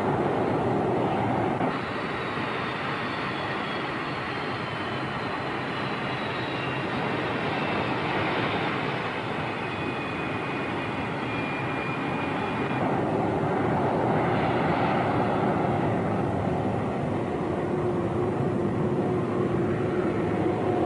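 Jet aircraft engines running, a dense roar with a high whine that slides slowly down in pitch. The sound changes abruptly about two seconds in and again just past the middle.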